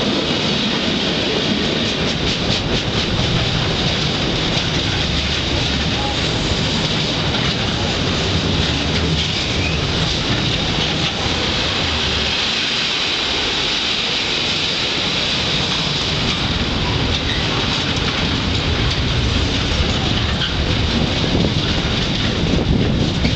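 A long intermodal freight train's container flat wagons passing close by: a steady rumble of steel wheels on rail with some clatter of wheels over the track.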